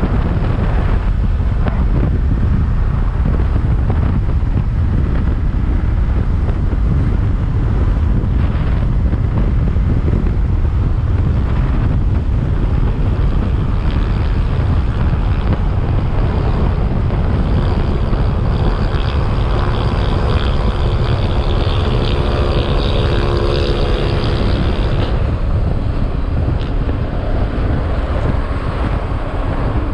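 Heavy wind buffeting on the microphone of a moving motorcycle, with the engine's steady pitched note rising clearly above the rush for several seconds about two-thirds of the way through.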